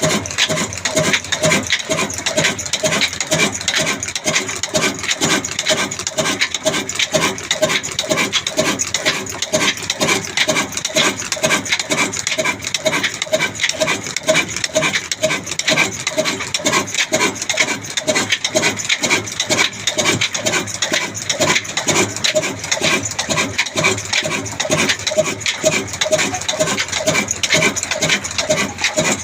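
Old black diesel engine running steadily with an even, regular beat while driving a flour mill, the mill's grinding and rubbing mixed in.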